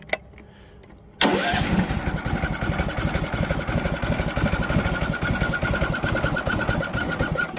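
An 11 horsepower generator engine fitted with an electric starter catches about a second in and runs steadily, with no throttle cable hooked up.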